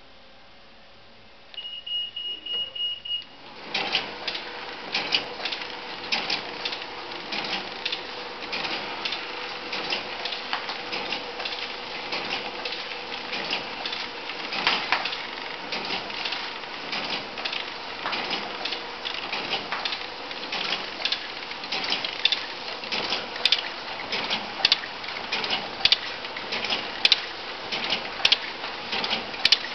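Omori Machinery S-5600A-BXH horizontal pillow (flow) wrapper. A high beep of about two seconds comes a little over a second in, then the machine starts and runs steadily with a fast, continuous clatter of mechanical clicks over a steady hum.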